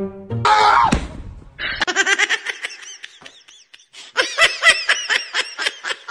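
A person laughing hard in rapid, breathy bursts that come several times a second, after a brief noisy outburst near the start.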